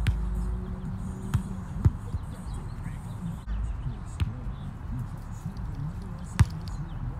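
A volleyball being hit back and forth by players during a rally: several sharp slaps a second or two apart, the loudest near the end.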